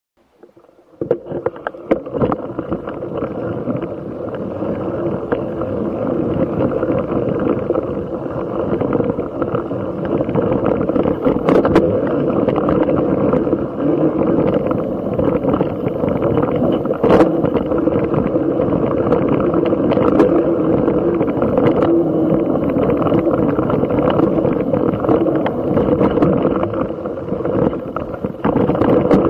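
Mountain bike riding fast down a dirt trail: wind buffeting the handlebar-mounted camera's microphone over the rumble and rattle of the bike on the rough ground, with occasional sharp knocks from bumps. It starts about a second in.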